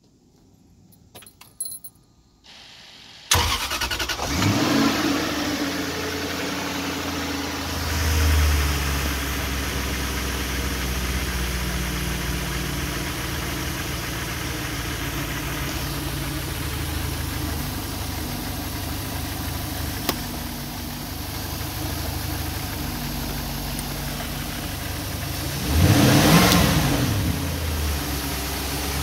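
Toyota 1UZ-FE 4.0-litre V8 in a boat starting about three seconds in, flaring briefly, then settling into a steady idle. Near the end it is revved up once and drops back to idle.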